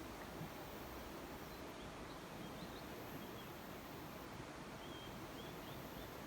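Steady rush of flowing river water, with a few faint, short, high bird chirps over it.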